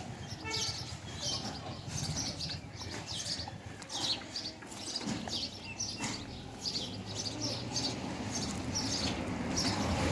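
Small birds chirping over and over, short high chirps about twice a second, over a low steady background hum.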